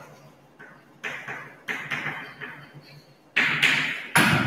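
Chalk writing on a blackboard: a run of short, sharp taps and scratches in quick clusters, loudest near the end.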